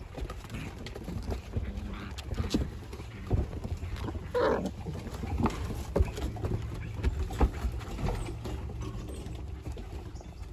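Puppies' paws and claws tapping and scuffling on wooden deck boards, many short irregular clicks and knocks, with one short falling animal cry about four and a half seconds in.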